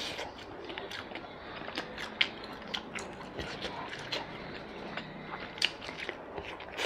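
Close-miked eating sounds: a person chewing a mouthful of food, with many small, scattered wet mouth clicks and smacks.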